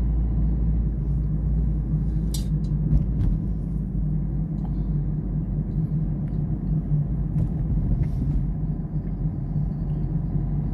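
Steady low rumble of a car's engine and tyres heard from inside the cabin while cruising along a city road, with a few light clicks about two to three seconds in.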